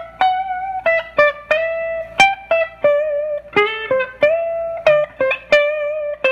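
Collings City Limits Les Paul-style humbucker electric guitar through a Fender amp, clean with all pedals off, playing a quick single-note lead lick. Each note is sharply picked, with a few slides between notes.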